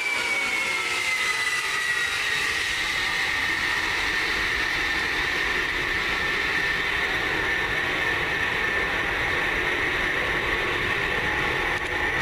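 Lockheed C-5 Galaxy's four turbofan engines at takeoff power as it climbs away: a loud, steady roar with a high whine that drops in pitch over the first two seconds as the aircraft passes, then holds steady.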